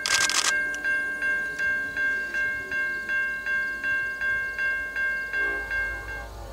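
Railroad grade-crossing bell ringing steadily at about three strokes a second, after a short burst of noise at the start. Near the end the bell fades out as a low rumble from the approaching diesel train rises.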